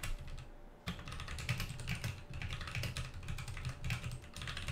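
Fast typing on a computer keyboard, a rapid irregular run of keystrokes starting about a second in after a short pause.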